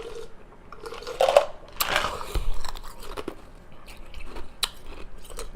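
Close-miked eating sounds of a person chewing and biting, with the loudest bites about one and two seconds in and sharp mouth clicks between.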